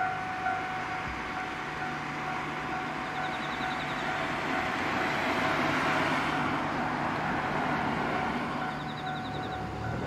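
Japanese railway level-crossing warning alarm ringing steadily, the signal that a train is approaching. A rushing noise swells under it about five seconds in.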